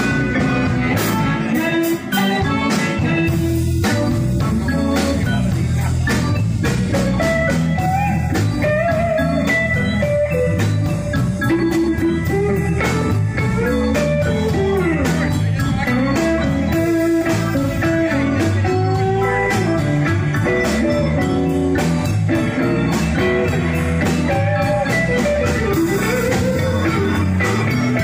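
Live blues band playing an instrumental number, led by an electric guitar solo with bent notes over drums, bass guitar and keyboards.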